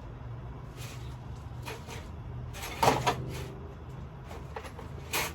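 Hand tools and sockets clattering and knocking as someone rummages through them, a few separate knocks with the loudest about three seconds in. A steady low hum runs underneath.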